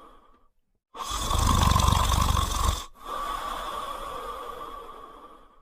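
French Spaniel snoring in its sleep: a loud snore with a low flutter lasting about two seconds, then a softer breath that slowly fades.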